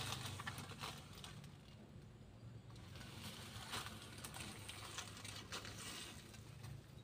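Faint, irregular rustling and crackling of dry leaf litter and cardboard being stepped on, over a low steady hum.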